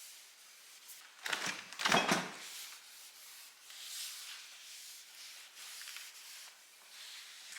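Cloth wiping and rubbing a surface in repeated strokes, with a louder knock about two seconds in.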